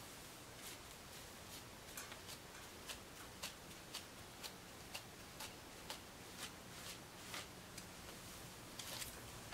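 Hairbrush strokes through wet curly hair: short, faint swishes about twice a second in a steady rhythm.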